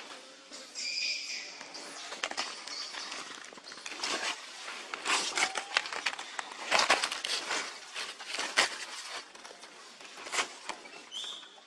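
Dry leaf litter rustling and crackling in irregular bursts, busiest in the middle, with a brief high call about a second in and a short high squeak near the end.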